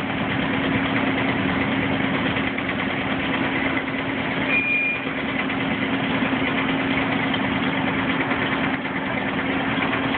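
Miniature ride-on train's locomotive engine running steadily, an even engine hum with no change in pitch, with a brief high squeak about four and a half seconds in.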